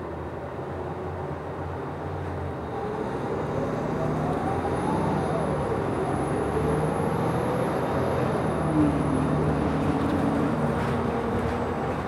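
Inside a Nova Bus LFS city bus under way: the engine and drivetrain running with road noise, getting louder from about two seconds in as the bus picks up speed. A whine rises and falls in pitch through the middle.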